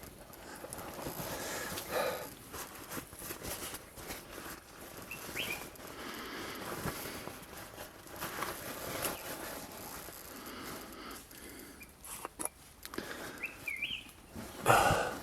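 A few short bird chirps over close rustling and handling noise, with a louder burst of noise near the end.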